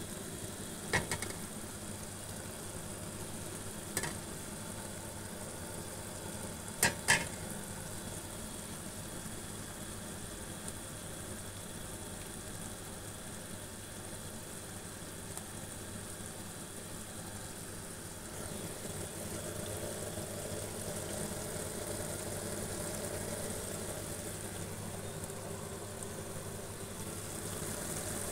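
Small meatballs and sliced onions frying in oil in a pan: a steady sizzle that grows a little louder past the middle. A few sharp knocks come early, including a quick double knock about seven seconds in.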